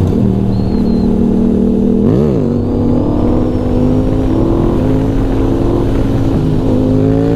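Yamaha MT-series crossplane motorcycle engine under way. About two seconds in it gives a quick rev up and back down, then its pitch climbs steadily as the bike accelerates, dropping near the end as it shifts up.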